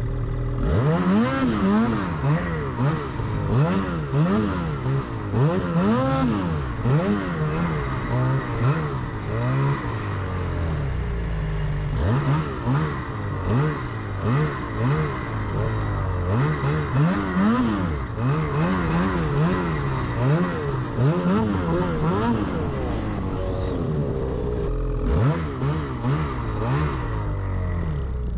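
Snowmobile engine revving hard over and over in quick rises and falls as it is ridden through deep powder snow. It eases back for a moment about three-quarters of the way through, revs again, then drops to a steady idle at the end.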